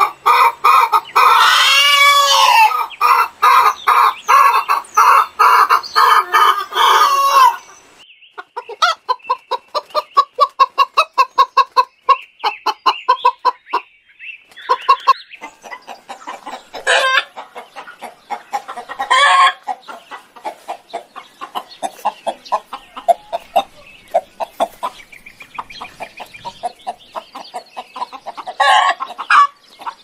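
Fowl calling loudly: a dense chorus of clucks and cackles with a long crow-like call about 2 s in. After a sudden change about 7 s in come rapid runs of clucks at about six a second, then scattered single calls, with louder bursts about two-thirds of the way and near the end.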